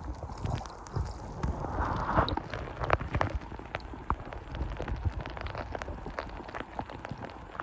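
Scattered clicks and knocks over a low rumble, with a louder rustle about two seconds in.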